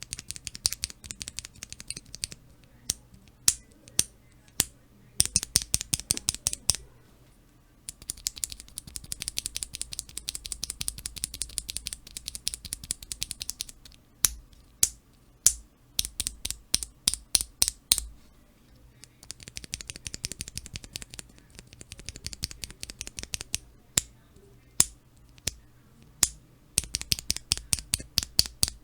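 Cherry MX Black linear keyboard switches in keychain testers being pressed and released: long runs of rapid clicking alternating with a few single, louder clicks, with short pauses between runs.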